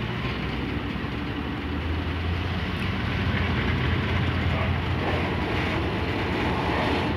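Slow-moving freight train: a covered hopper wagon rolling past over the crossing, with the low steady drone of the GE U20-C diesel-electric locomotive, which grows louder about two seconds in.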